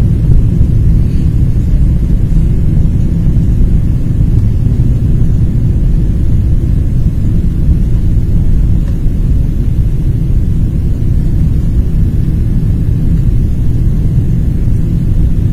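Steady low rumble of a jet airliner's cabin during the descent to landing, heard from a window seat over the wing.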